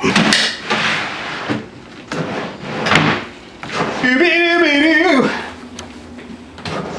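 A wooden drawer running in and out on metal drawer slides, a few short sliding runs and knocks as it is opened and closed. About four seconds in a person's voice holds a long, wavering exclamation.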